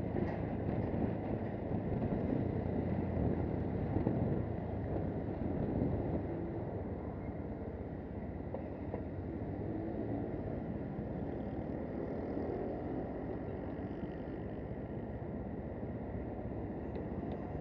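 AKT 250 Adventour motorcycle's single-cylinder engine running in traffic; from about six seconds in it drops to a quieter, steadier sound as the bike slows to a stop and idles.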